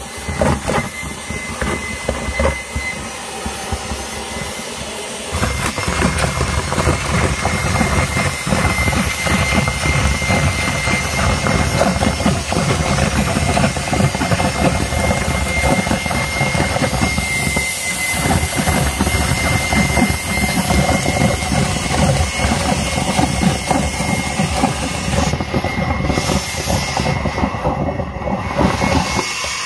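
Handheld vacuum cleaner running steadily with a high motor whine, sucking up water beads that clatter through its nozzle. The sound grows louder and fuller about five seconds in.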